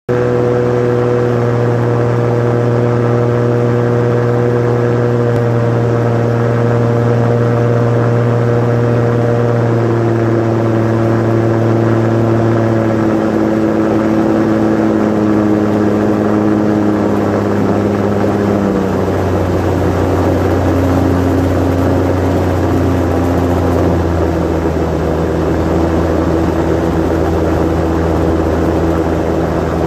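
Osprey 2 amphibious seaplane's piston engine and propeller running steadily in flight, heard inside the cockpit over rushing air. The engine note drops a step about ten seconds in and again about nineteen seconds in.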